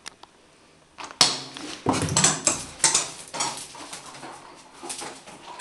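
A hard plastic light-up ball clattering and knocking on a stone floor as a dog paws and chases it. The clatter starts about a second in, is busiest for the next two seconds, then thins to lighter knocks.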